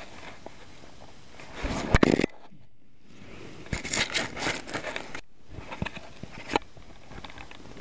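Scraping, crunching footsteps on a gritty, icy concrete floor: a short loud scrape about two seconds in, then a run of shuffling steps in the middle.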